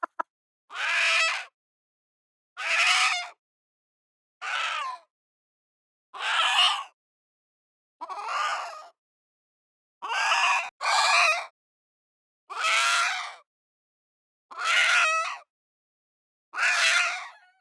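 Chicken calls: about ten separate calls, each under a second long, coming roughly every two seconds with silence between. Two follow close together about ten seconds in.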